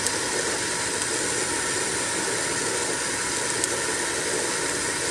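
Propane torch flame burning with a steady hiss, with a couple of faint ticks.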